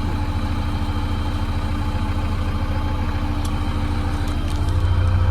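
Vehicle engine running steadily with an even low throb, growing louder about four and a half seconds in, with a few faint clicks.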